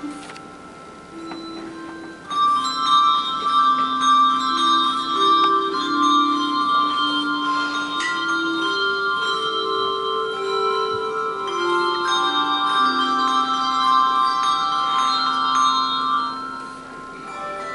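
A handbell choir ringing a hymn arrangement: many overlapping bell tones ring on over a moving lower line of notes. It grows louder about two seconds in and softens near the end.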